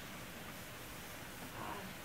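Quiet room tone: a steady low hiss, with one faint brief sound about one and a half seconds in.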